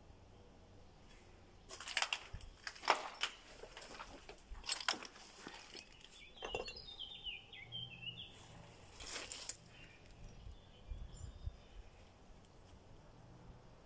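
Footsteps crunching on dry, littered ground, several irregular steps about half a second apart, with a short falling run of bird chirps about halfway through.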